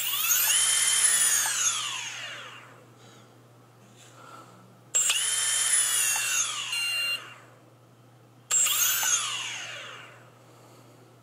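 Brushless multirotor motors whining up sharply and winding back down three times, each run lasting two to three seconds, during throttle calibration of the ESCs. The motors only kick in for a moment each time instead of running steadily.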